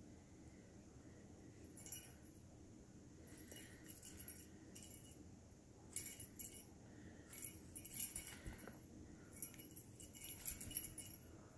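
Faint, irregular jingling of a small bell on a feather wand cat toy as it is waved and batted by a kitten, coming in short clusters mostly in the second half.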